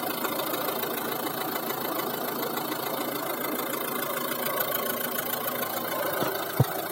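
1.6 HDi DV6C four-cylinder diesel engine idling steadily with a soft knock, a knock that appears only once the engine is warm and whose cause is unknown. A single loud thump comes near the end.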